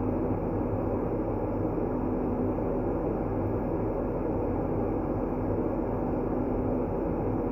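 Steady low, rumbling white noise for sleep, darker than pure hiss, with a faint steady hum underneath; it does not change.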